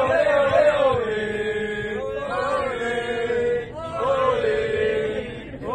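Football supporters chanting together in long, held, sung phrases, with short breaks between phrases.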